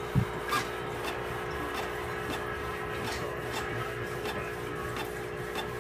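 Steady mechanical hum of an aquarium air pump, with irregular soft clicks and one low thump just after the start.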